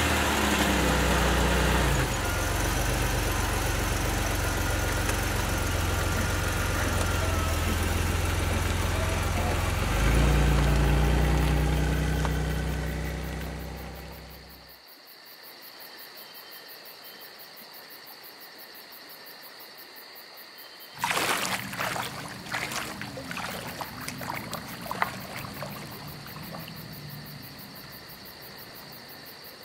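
Pontiac 6000 LE engine idling just after starting; its note rises about ten seconds in, then fades away. Then a steady chirring of crickets, with water splashing from about twenty seconds in as someone wades into the river.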